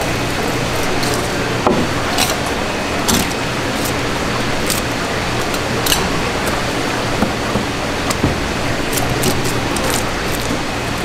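A filleting knife cutting along a mullet, giving short, sharp, irregular clicks as the blade passes over scales and bone, over a steady background hum and hiss.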